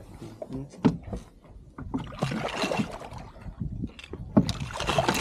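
Water splashing and sloshing as a muskie thrashes in a landing net at the side of a boat, with two sharp knocks about a second in and near the end.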